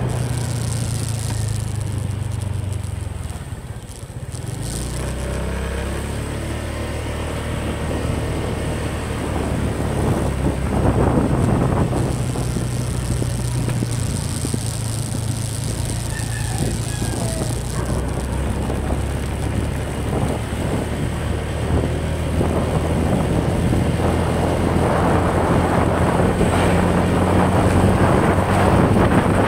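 Motorcycle engine running while riding, with a rush of wind and road noise. The engine eases off about four seconds in, then pulls steadily again.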